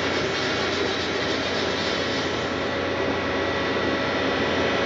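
Steady mechanical drone of running machinery, with several steady whining tones held over it and no change in level.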